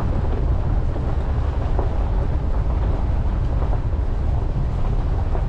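A 2020 Ford Ranger pickup driving a dirt-and-gravel track, heard as a steady low rumble of tyres and running gear with scattered small clicks and rattles.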